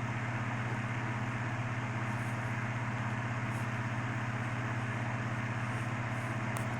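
Steady low hum with a hiss underneath, unchanging throughout: constant background noise such as a running fan or room machinery, with no distinct event.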